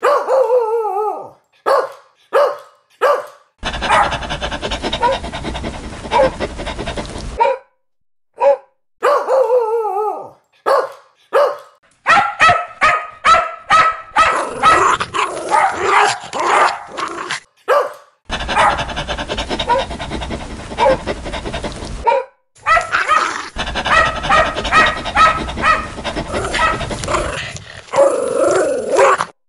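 Dogs barking loudly and aggressively, bark after bark in quick runs. This is a string of separate recordings cut together, and some of them carry a steady hum or hiss under the barks that starts and stops abruptly.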